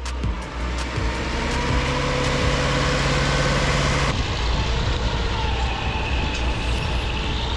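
Heavy machine engine running steadily, with an abrupt change in the sound about four seconds in.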